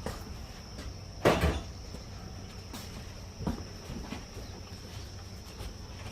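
A steady high-pitched drone of insects, with one loud knock or clatter like a wooden door or cupboard about a second in, and a few lighter knocks later.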